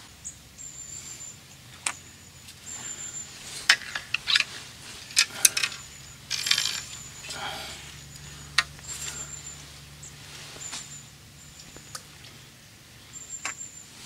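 Sharp clicks and knocks with bouts of rustling as fishing tackle is handled, while a small bird repeats short, thin, very high calls every second or two.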